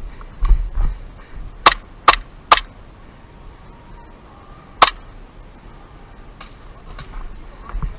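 Airsoft gun firing single shots: three sharp cracks in quick succession about half a second apart, then one more about two seconds later.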